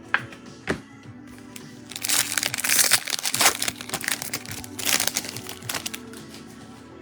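Foil wrapper of a trading card pack crinkling and tearing open, after two sharp clicks near the start, over steady background music.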